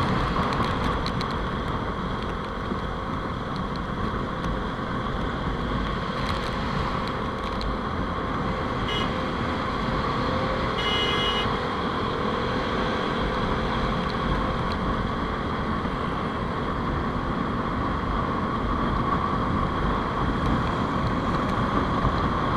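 Motorcycle on the move: engine running steadily under wind and road noise on the microphone. A brief high tone sounds about eleven seconds in.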